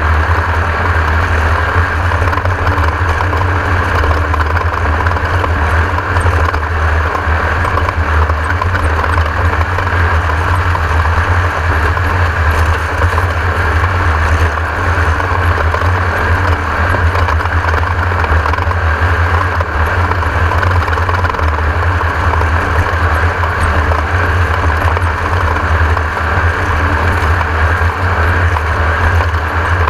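Class 1600 desert race car's air-cooled VW engine running steadily, a continuous low drone that holds the same pitch throughout.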